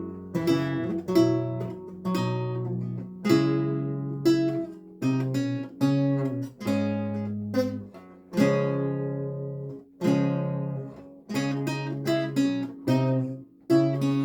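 Renaissance lute played solo: plucked chords and single-note lines, each note struck sharply and ringing away, phrase by phrase.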